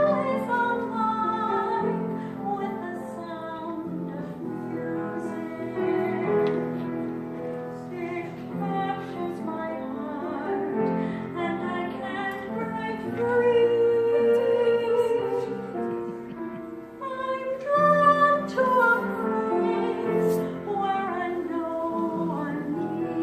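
Music: a woman's voice singing a slow melody over held accompaniment notes.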